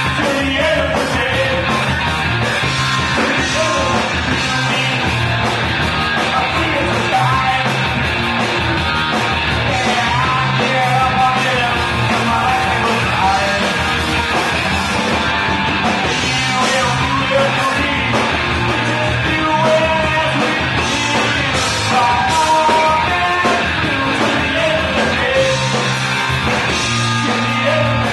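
Live rock band playing a song, with electric guitars and drums and a vocalist singing over them.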